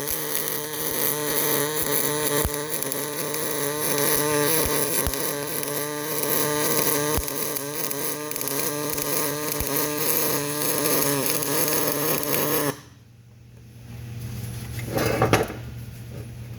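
Welding arc crackling and buzzing steadily for about thirteen seconds, then cutting off suddenly as the weld stops. A short loud burst follows a couple of seconds later.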